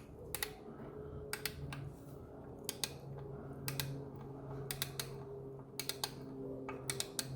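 Ratchet wrench clicking in short, irregular groups of sharp clicks as clutch pressure-plate bolts are run down to snug the plate against the flywheel, over a faint steady hum.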